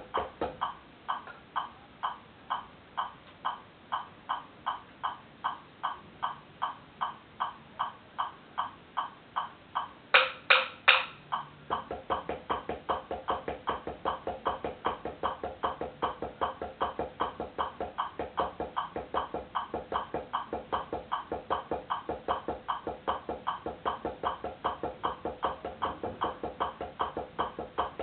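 Wooden taiko bachi striking a practice pad in a steady drill rhythm, about three strokes a second. Three louder strokes come about ten seconds in, then the strokes double up to about five a second.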